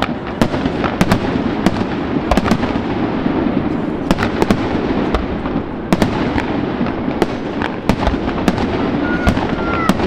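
Fireworks display: aerial shells bursting in quick succession, sharp bangs several times a second over a continuous rumble and crackle. A short high whistle sounds near the end.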